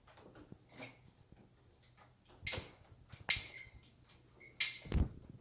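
A few sharp clicks and short scrapes of things being handled, with a dull thump near the end.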